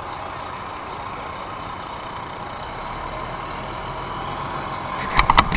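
Engine of a ladder fire truck running as it drives slowly past. A few short, loud sharp bursts come near the end.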